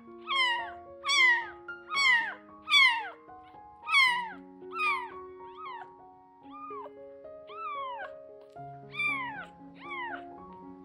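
A roughly ten-day-old kitten mewing over and over, about one high cry a second, each cry falling in pitch, loudest in the first half. Background music with held notes plays underneath.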